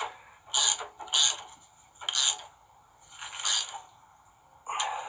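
Hand tool tightening the nuts of a wire rope clamp on a steel winch cable, in five short bursts about a second apart.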